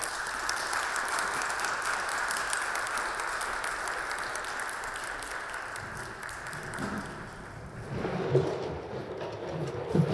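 Audience applauding, the clapping dying away about seven seconds in. A single thump follows about eight seconds in.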